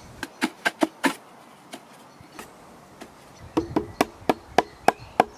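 Sharp knocks of wood on wood as the boards of a flat-pack National beehive super are tapped together at the joints: a quick run of about five knocks in the first second, a few weaker ones, then a steadier run of about eight near the end.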